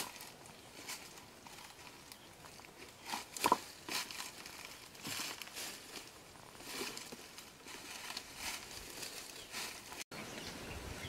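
Dry leaves and twigs rustling and crunching under bare feet in irregular steps, with one louder crackle about three and a half seconds in.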